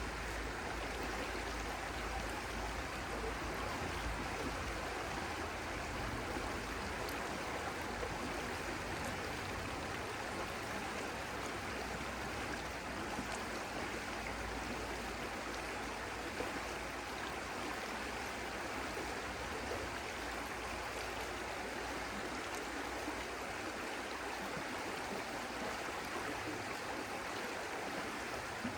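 Stream water flowing steadily, an even rushing with no breaks.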